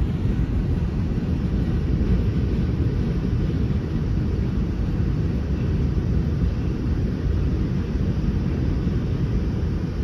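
Steady low rumble of a departing freight train of covered hoppers rolling away on the rails, mixed with wind buffeting the microphone.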